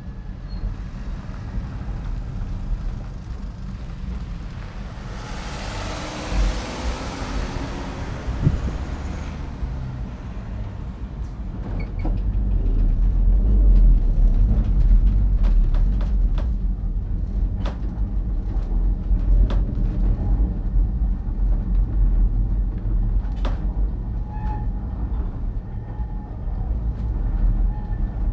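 Great Orme Tramway cable-hauled tramcar on the move, a steady low rumble that grows louder about twelve seconds in, with a hiss for a few seconds near the start and scattered clicks and knocks through the second half.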